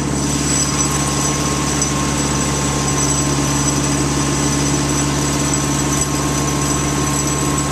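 Steady drone of a running engine, with a constant low hum and a faint high whine that never change. It is not the DC-7B's own radial engines, whose propellers are standing still.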